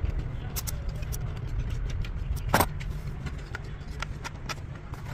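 Repeated sharp clinks and knocks of metal tools and engine parts being handled during a diesel engine rebuild, with one louder knock about two and a half seconds in, over a steady low rumble.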